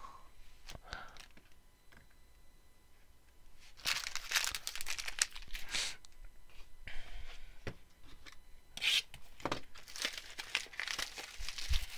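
Plastic wrapping being torn and crinkled by hand, in repeated short bursts starting about four seconds in, after a few nearly quiet seconds.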